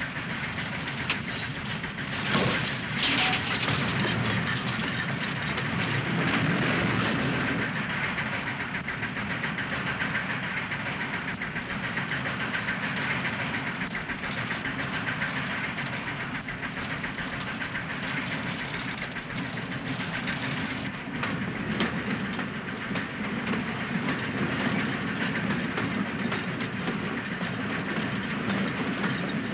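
Steam locomotive running fast along the track: a steady, dense running noise of the engine and wheels on the rails, with a few sharp knocks in the first few seconds.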